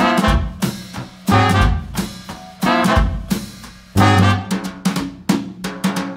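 Upbeat swing-style jazz with a prominent drum kit, snare and bass drum, over brass instruments.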